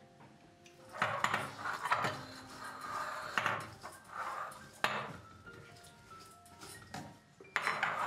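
Kitchen utensils clattering and scraping: a metal mesh strainer and a small knife knocking against ceramic bowls and a stone countertop, with a few sharper knocks.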